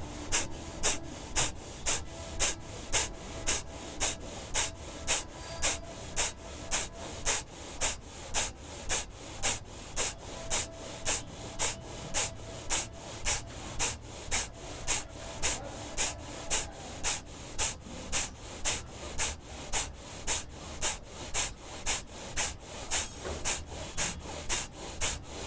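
Kapalbhati pranayama: forceful exhalations through the nose, a steady run of short, sharp puffs of air about two a second.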